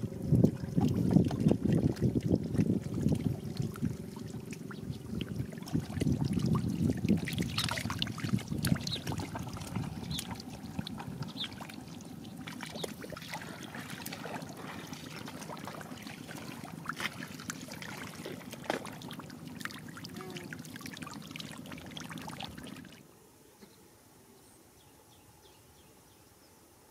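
Many catfish thrashing in shallow muddy water, a dense patter of wet slaps and splashes. It stops about 23 seconds in, leaving only a faint hush.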